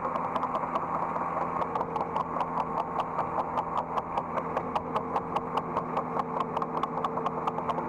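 Hydraulic excavator's diesel engine running steadily, heard from the operator's cab, with a rapid, even ticking of about five sharp clicks a second over the engine hum.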